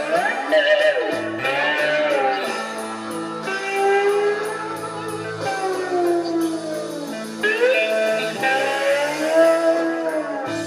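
Three-string cigar box guitar played with a slide, a blues riff with notes gliding up and down into pitch over a steady low drone.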